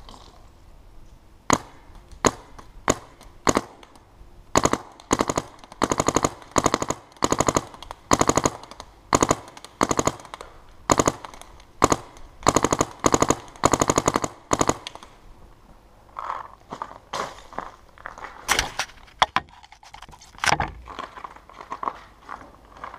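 Dye DM-series paintball marker firing on compressed air: a few single shots, then long rapid-fire strings of shots, then scattered shots. A heavy low thump near the end.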